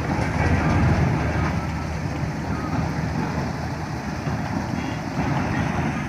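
New Hira 985 combine harvester running steadily while cutting and threshing paddy: a loud, even engine and machinery rumble.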